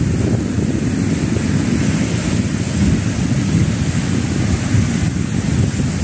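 Wind buffeting the phone's microphone in a dense, fluttering low rumble, over small sea waves washing onto a pebble shore.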